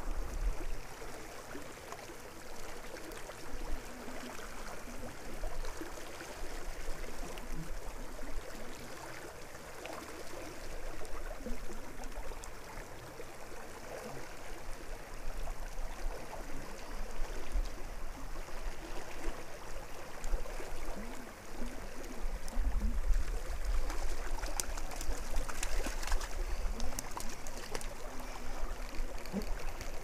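Steady rush of river water flowing past the bank. Low rumbling on the microphone from about two-thirds of the way in.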